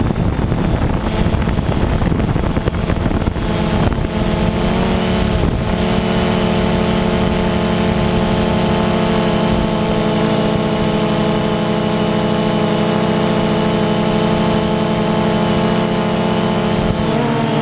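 DJI Phantom quadcopter's motors and propellers running, heard close from the camera mounted on the drone, with wind noise on the microphone for the first few seconds. From about five seconds in it holds one steady buzzing pitch, which wavers just before the sound cuts off.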